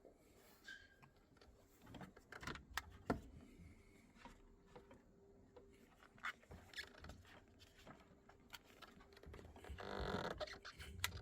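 Scattered light clicks and knocks of hands handling tools and cables, over a faint steady hum, with a short burst of rustling noise near the end.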